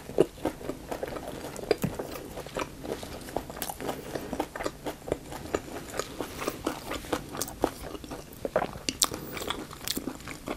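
Close-miked chewing of a crispy fried Vietnamese egg roll, with a run of irregular crunches of the fried wrapper between the teeth.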